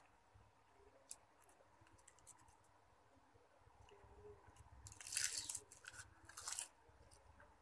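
Crisp food being bitten and crunched close to the microphone, in two short bursts of crunching about five and six and a half seconds in, with a few faint ticks before.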